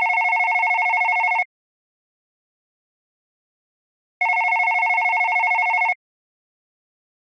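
Modern landline telephone's electronic ringer: a fast-warbling multi-tone ring about 1.7 s long, repeating after about 2.7 s of silence. One ring ends about a second and a half in and the next sounds from about four to six seconds in.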